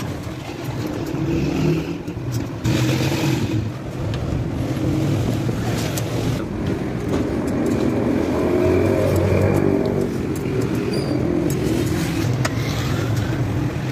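Newly assembled Honda CG 125's air-cooled single-cylinder four-stroke engine running steadily, a little louder around the middle.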